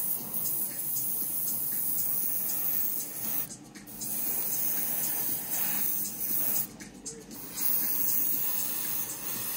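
Airbrush hissing steadily as it sprays grey paint, with the air cut off briefly about three and a half seconds in and again around seven seconds.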